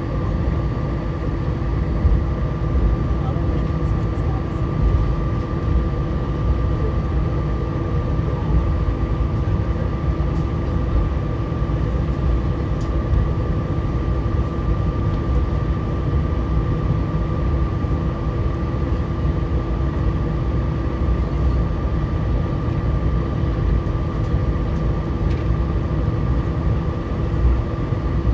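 Airbus A319's CFM56 jet engines running at idle thrust while the airliner taxis, heard inside the cabin: a steady deep rumble with a constant hum and a few steady whining tones.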